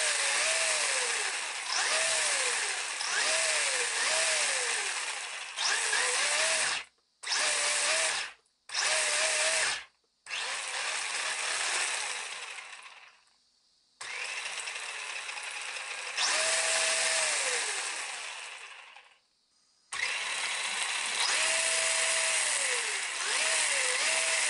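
Brushless electric motor and gear drivetrain of a Tamiya RC buggy running with its wheels spinning free off the ground, revved up and down in repeated throttle pulls. The whine rises and falls with each pull, and the throttle is let off briefly several times and for about a second twice.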